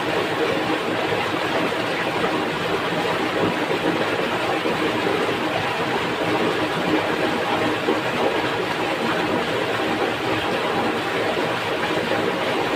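Small rocky mountain stream rushing over rocks and through shallow rapids: a steady, unbroken rush of water.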